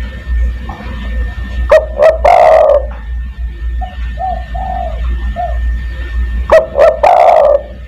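Spotted dove (tekukur) cooing. Two loud call phrases come about five seconds apart, with a run of four softer coos between them. A steady low hum runs underneath.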